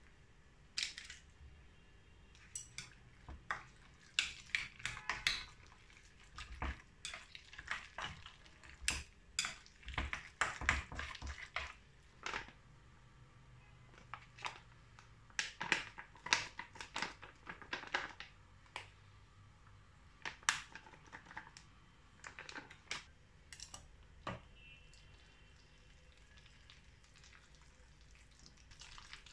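Wooden chopsticks knocking and scraping against a stainless steel bowl while stirring minced pork filling, in irregular runs of sharp clicks.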